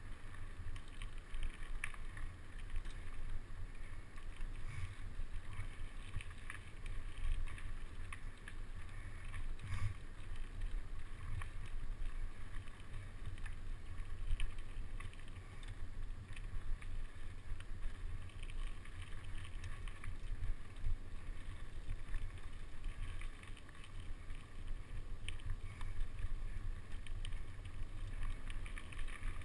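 Mountain bike riding a rough dirt trail: a steady low rumble of wind on the microphone and the tyres rolling, with frequent small clicks and rattles from the bike over the bumps.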